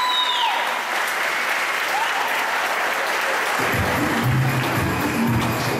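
Audience applauding, then a music track with a steady bass beat starts about two-thirds of the way through.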